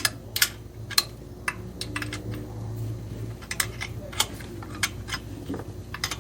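Irregular sharp metallic clicks and taps of hand tools working in the engine bay, about one or two a second, over a low steady hum.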